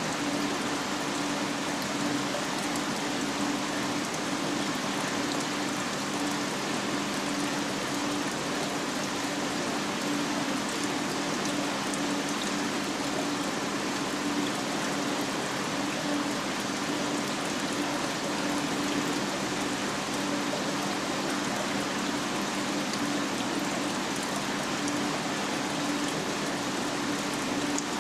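Marine aquarium's water circulation running: a steady rush of flowing, trickling water with a low steady pump hum underneath.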